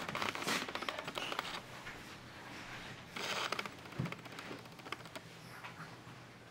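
Fabric rustling and light clicking from handling and moving about, in two louder stretches near the start and about three seconds in, with a soft thump about four seconds in.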